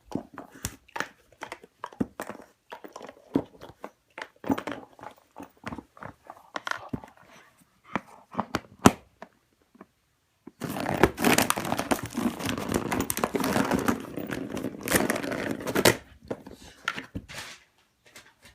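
Cocker spaniel playing with a cat toy: scattered knocks and taps, then about five seconds of dense, continuous noise from the toy being worked over, then a few taps again.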